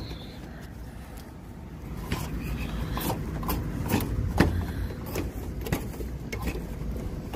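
Thermostat wire being fed through a rooftop heat pump's sheet-metal cabinet: irregular clicks, knocks and scrapes of wire and hands against metal, starting about two seconds in, over a low steady rumble.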